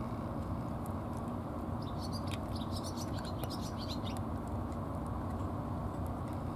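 A tabby cat eating from a bowl, with faint chewing clicks over a steady low outdoor rumble. For about two seconds in the middle there is a quick run of high chirps.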